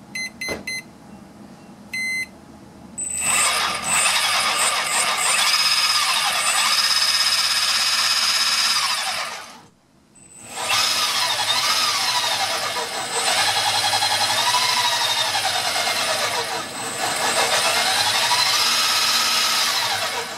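A hobby speed controller's short startup beeps, then a brushless outrunner motor driving the scooter's belt and gear reduction spins up under throttle, its whine rising and falling in pitch as the throttle is worked. It stops for about half a second midway, then runs again.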